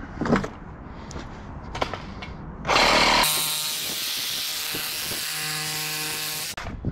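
A power tool cutting through scrap metal, running steadily for about four seconds from a little under three seconds in, a steady whine over a hiss. Before it start there are a few light knocks of metal being handled.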